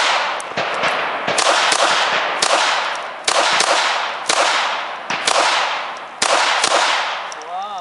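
Pistol shots from a CZ85 fitted with a CZ Kadet .22LR conversion upper, fired in a steady string of about a dozen rounds at roughly two a second, each sharp crack followed by a decaying echo.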